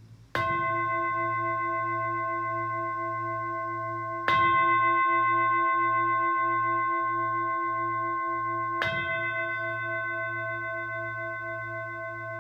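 Singing bowl struck three times, about four and a half seconds apart, each strike ringing on in a long, wavering tone that slowly fades.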